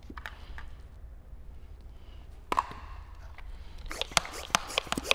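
Hand trigger spray bottle squirting soapy slip solution onto the paint-protection film, a quick series of short sprays near the end, after a single sharp click about two and a half seconds in.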